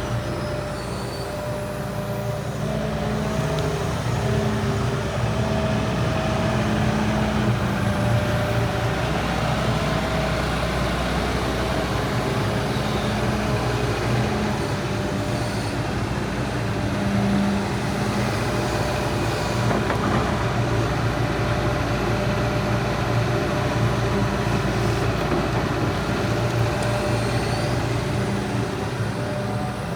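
Hitachi ZX250LC-3 excavator's diesel engine running steadily, its loudness rising slightly a few seconds in.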